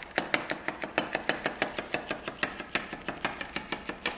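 Kitchen knife chopping celery stalks on a cutting board: rapid, even strokes, about six a second.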